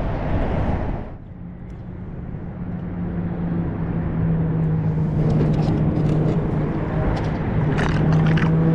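An engine's steady low hum that fades in about a second in and grows louder, over a noisy rushing background.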